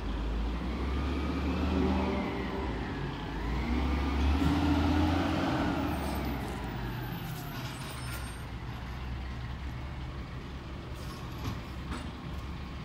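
Crane Carrier cab-over rear-loader garbage truck's diesel engine running down the street, with a wavering whine that rises and falls over a low rumble. It swells twice in the first five seconds, then eases off.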